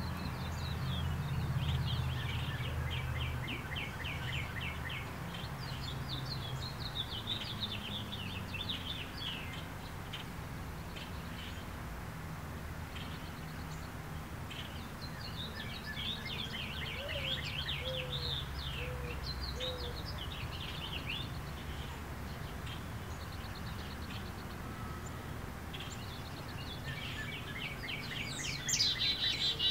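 Small birds chirping and trilling, with quick runs of repeated notes that come thickest near the end. A low steady rumble runs underneath, strongest in the first few seconds.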